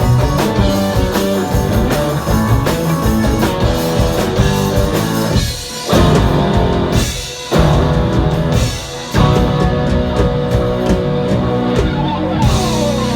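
Live rock band with electric guitar and drum kit playing the instrumental close of a song, with three short stops in the music before a held chord near the end.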